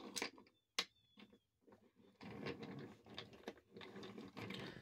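Faint clatter of wooden toy train wagons rolling over wooden track as they are pushed by hand, with a couple of sharp clicks in the first second and a longer stretch of rattling in the second half.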